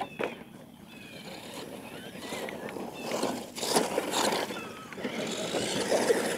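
Radio-controlled monster truck driving across a dirt course, its motor and tyres getting louder from about two seconds in.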